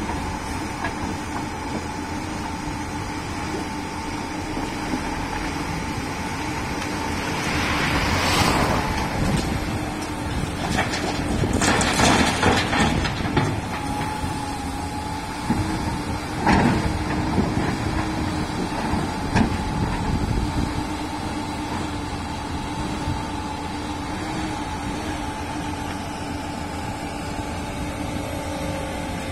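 Komatsu PC290LC hydraulic excavator running with a steady droning engine hum, broken by loud bursts of scraping and clattering as the bucket works through earth and broken concrete. The loudest bursts come about 8 seconds in, around 12 seconds and near 16 seconds.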